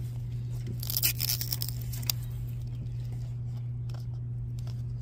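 Thin plastic film wrap being peeled and torn off a plastic Mini Brands capsule ball, with a tearing rasp about a second in, then a few lighter scratches and crinkles. A steady low hum sits underneath.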